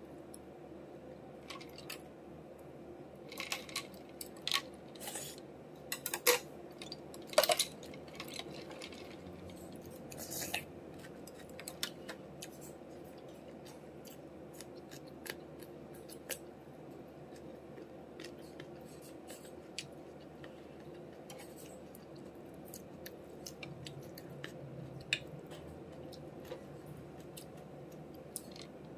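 Close-up eating sounds: crunching and chewing of crisp green mango and boiled greens, with sharp clicks of chopsticks and a spoon against ceramic bowls and plates. The clicks and crunches come thick and loud in the first eight seconds or so, then scattered and softer, over a faint steady hum.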